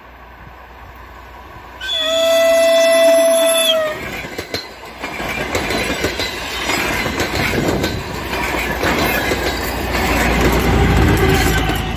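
DR1B diesel multiple unit sounding one steady horn blast of about two seconds, then passing close by with wheels clattering on the rails. A deep engine rumble comes up near the end as the rear power car goes by.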